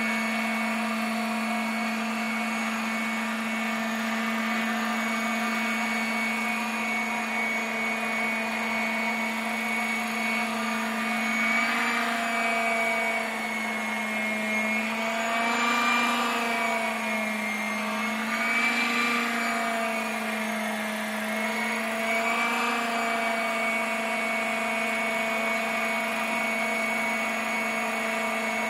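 Radio-controlled Hughes 500D scale helicopter, converted to electric power, hovering: a steady whine from its electric motor and rotor. The pitch dips and rises several times in the middle stretch as the rotor speed changes.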